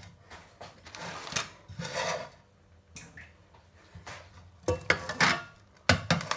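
A metal colander and saucepan clattering, with the drained penne sliding from the colander into the pot. The loudest part is a few sharp metal-on-metal knocks near the end.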